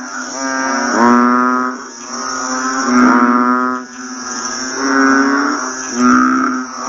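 Frogs calling: low, drawn-out croaks, each just under a second long, repeating every second or two. A steady high insect trill runs underneath.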